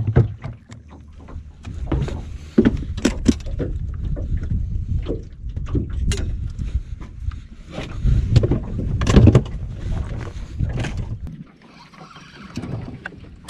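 Handling noise: clothing rubbing across the microphone and scattered knocks and thumps as a caught crappie is put into a cooler on the boat, over a low wind rumble. The loudest thumps come about two-thirds of the way in, and it quietens near the end.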